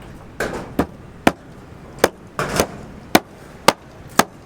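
Repeated sharp striking, a blow about every half second, with short scraping sounds in between, typical of hand-tool work on a building site.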